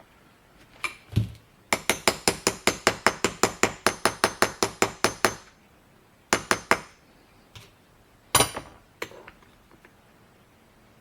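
Small hammer tapping a battery terminal clamp down onto its conical battery post: a quick, even run of about twenty sharp metallic taps, about five a second, then a few single taps near the end, seating the terminal fully on the post.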